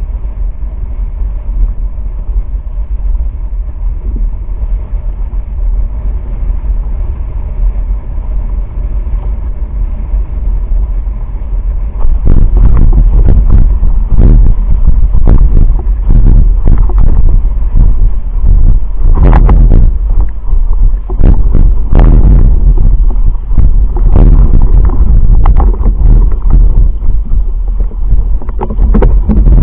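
Wind buffeting the microphone of a boom-mounted action camera on a windsurf foil board, a heavy low rumble with the rush of the water and board beneath. About twelve seconds in it turns much louder and gustier, with irregular blasts.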